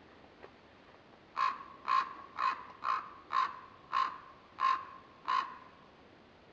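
Common raven calling: eight short, harsh croaking calls in a steady series, about two a second.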